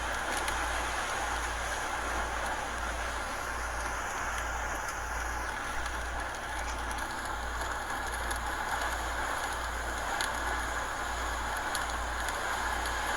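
Hurricane wind and rain making a steady rushing noise, with a low rumble pulsing evenly underneath.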